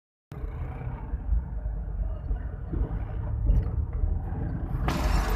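Low, steady engine and road rumble of a moving vehicle, heard from inside it, with a rise in hiss near the end.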